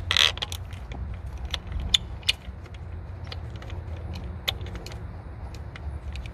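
Small metal clicks and light scrapes of a screw and ground-wire ring terminal being fitted and turned in by hand, irregular, with a few sharper clicks near the start and around two seconds in, over a steady low hum.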